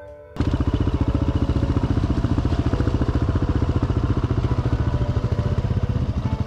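Yamaha XT250's single-cylinder four-stroke engine running steadily as a fast, even pulsing, cutting in abruptly after a short bit of music about half a second in.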